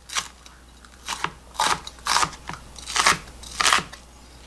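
Chef's knife cutting through a raw onion on a cutting board: about six crisp crunching cuts, irregularly spaced roughly half a second to a second apart.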